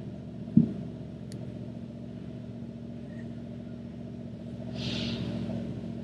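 1976 Chevy C65 truck engine idling steadily, with a short thump about half a second in and a brief hiss around five seconds in.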